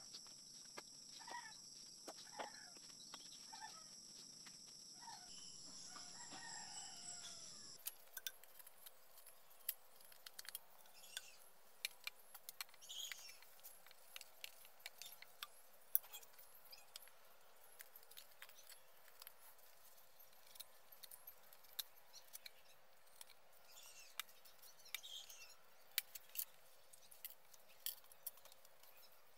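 Chickens clucking over a steady high insect drone for the first eight seconds. After an abrupt change, a long run of sharp light knocks and clicks follows as bamboo is knocked and worked, a crosspiece being fitted into a bamboo post, with faint bird calls in the background.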